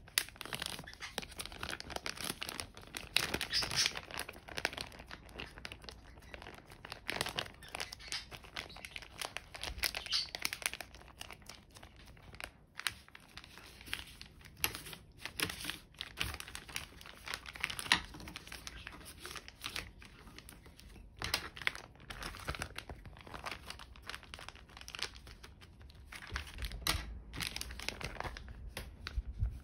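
A plastic Ziploc zipper bag crinkling and rustling irregularly as hands knead cucumber pieces and a yogurt-and-miso pickling mix inside it.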